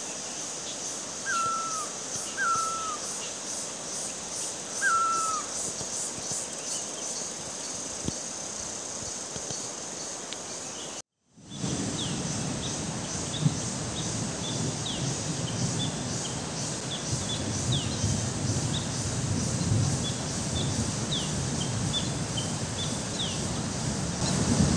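Hillside forest ambience: a steady, high insect drone, with a bird giving three short falling calls in the first few seconds. After a cut about eleven seconds in, wind rumbles and builds as the weather turns, with many quick high bird chirps over the insects.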